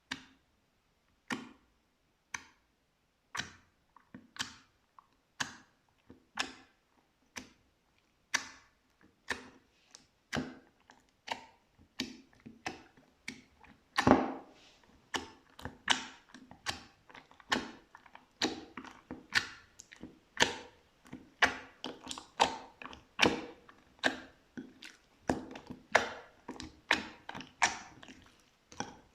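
Slime being pressed and poked, giving sharp popping clicks as air pockets burst. The pops come about once a second at first and about twice a second from halfway on, with the loudest one about halfway through.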